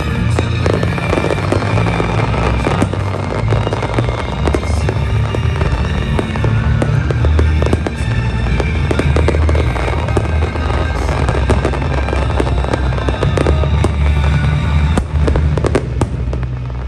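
Fireworks bursting and crackling in quick succession over loud music, the display soundtrack with heavy low notes. The bangs thin out near the end.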